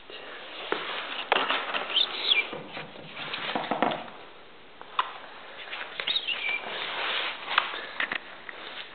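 Small dog playing with a rubber ball on a tile floor: irregular clicks, knocks and rustling close to the microphone, with two short high squeaks that fall in pitch, about two and six seconds in.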